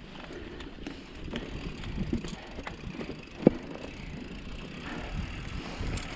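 Mountain bike descending a rocky, loose trail: the bike rattles over rock and dirt with scattered clicks and knocks, and one sharp loud clack about halfway through.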